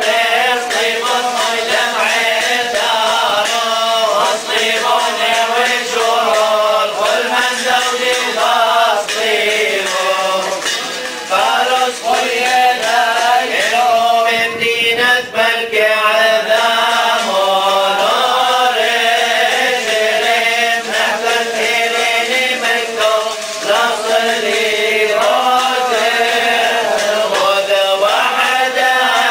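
Male clergy chanting a liturgical hymn, the melody sliding and wavering from note to note without a break.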